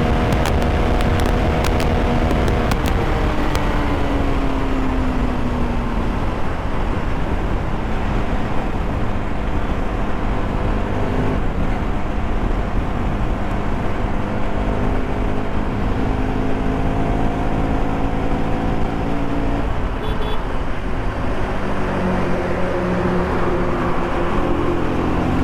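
Bajaj Pulsar RS200 motorcycle's single-cylinder engine with a K&N air filter, heard while riding. The engine note falls about three to six seconds in and climbs again near the end, over steady wind and road noise.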